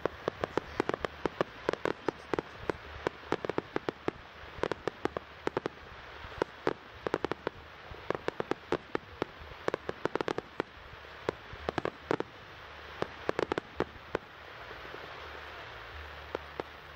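Starmine fireworks barrage: many shells firing and bursting in rapid succession, sharp bangs coming in dense clusters over a steady hiss. The bangs ease off for a couple of seconds near the end, leaving mostly the hiss, before a few more.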